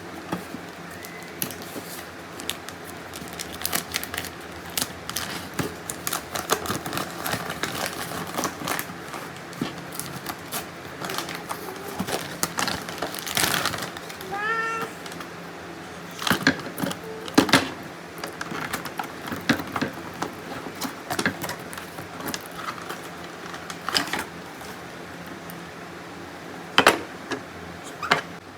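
Gift packaging being handled and opened: irregular crinkling, rustling and sharp clicks. A brief high call, like a meow, rises and falls about halfway through.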